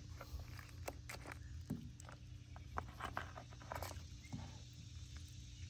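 Faint, scattered small clicks and wet handling sounds of hands pulling the entrails loose inside a snapping turtle's opened shell, over a low steady background rumble.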